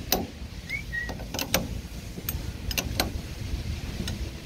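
Wrench worked one-handed on an alternator's pulley nut, the alternator clamped in a vise: a string of irregular sharp metallic clicks and ticks, with one brief high squeak about a second in, over a low steady rumble.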